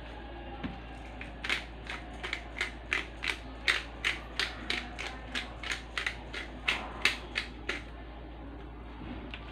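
Hand-twisted pepper grinder grinding, its mill clicking at an even rate of about three clicks a second. It starts about a second and a half in and stops near the end.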